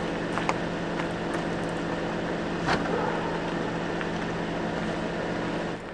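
Steady hum of a Toyota RAV4 idling, with a few light knocks as gear is loaded into its open rear hatch.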